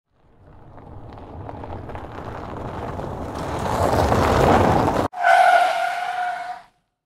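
Car sound effect: a swelling rush of a car coming on, building for about five seconds and cutting off abruptly, then a steady high tyre squeal lasting about a second and a half.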